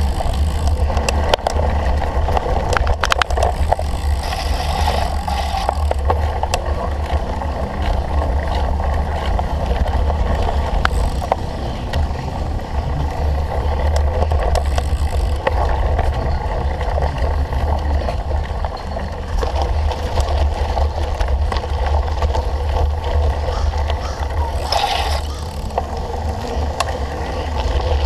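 Cyclocross bike ridden hard over rough ground: a steady low rumble of wind on the microphone, with tyre noise and scattered clicks and rattles from the bike.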